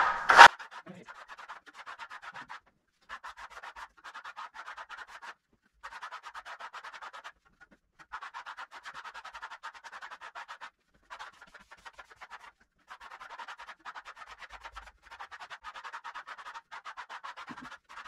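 Stainless steel trowel scraping over a thin, partly set coat of burnt-cement (cimento queimado) wall texture, in quick strokes in random directions. The scraping comes in runs of one to two seconds with brief pauses between. This is the troweling pass that works the coat into its mottled finish.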